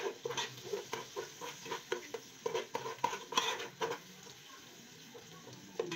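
A spoon stirring ground egusi (melon seed) frying in palm oil in a metal pot: quick scraping strokes against the pot, two to three a second, for about four seconds. After that comes a quieter, steady sizzle of frying, with one more stroke near the end.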